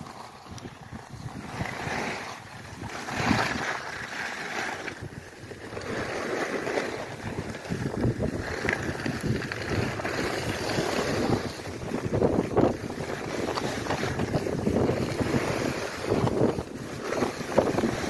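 Skis scraping over packed snow during a downhill run, with wind buffeting the microphone; the noise rises and falls in irregular surges.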